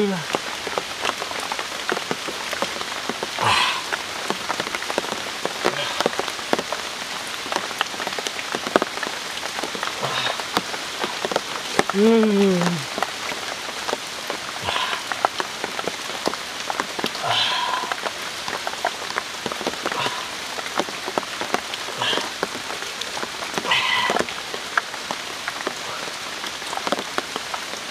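Steady rain pattering on leaves and the forest floor, a dense scatter of drop ticks. About twelve seconds in, a short falling hum from a person's voice.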